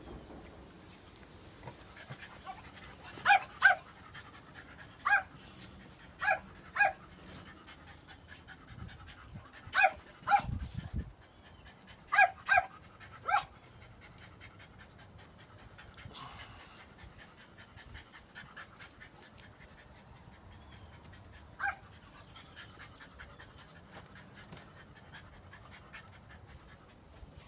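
Cavalier King Charles Spaniel puppy giving short, high-pitched yips, mostly in quick pairs, several times over the first half, with a single yip later on.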